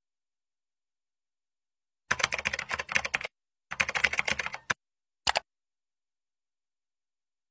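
Computer keyboard typing sound effect: two quick runs of keystrokes, each about a second long, starting about two seconds in, then a single short click about five seconds in.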